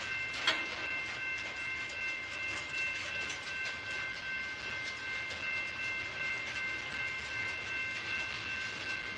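Loaded freight cars (gondolas and boxcars) of a passing freight train rolling by: wheels clicking and clattering over the rail joints, with a steady high-pitched ringing squeal over it. A single sharp bang about half a second in.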